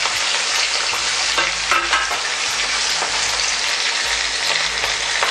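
Two masala-coated pomfret fish sizzling in hot oil in a frying pan, freshly laid in: a steady, dense crackling hiss with scattered small pops.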